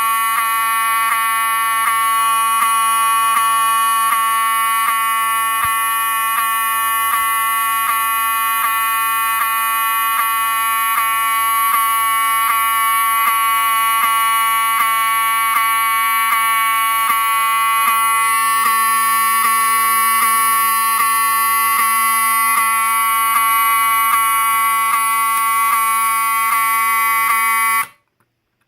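Wheelock 7002T-24 horn strobe sounding a continuous, really loud horn tone, set off from a pull station. It cuts off suddenly about a second before the end when the pull station is reset.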